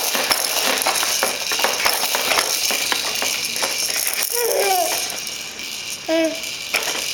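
Baby bouncer seat and its hanging toys rattling in quick, continuous clatters as a baby bounces in it. A baby's short vocal sounds come in about four and a half seconds in and again briefly near the end.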